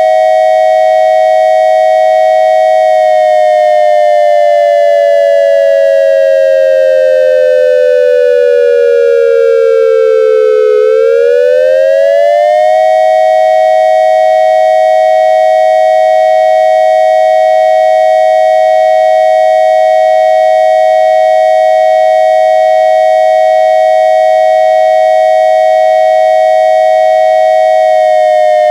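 Synthesized dual-tone electronic siren, a triangle-wave imitation of an ASC digital siren controller: a steady two-note chord that slowly winds down in pitch for about eight seconds, climbs back up within about two seconds, holds steady for about fifteen seconds, and begins to fall again near the end.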